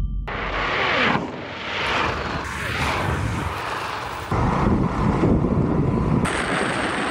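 Wind rushing over the microphone with road noise as high-speed electric scooters run at full power. The sound is a steady rush that changes abruptly several times.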